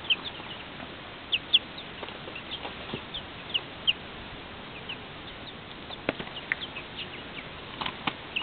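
Young chickens, about five to six weeks old, peeping: many short, high chirps that fall in pitch, scattered irregularly, with a few sharp taps in among them.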